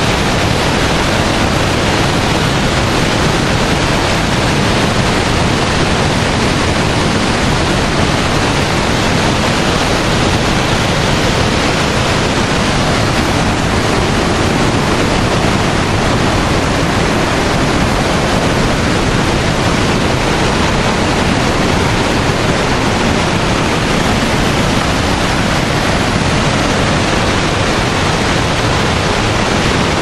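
Mountain waterfall and white-water stream rushing steadily: a loud, even noise of falling and cascading water that holds without a break.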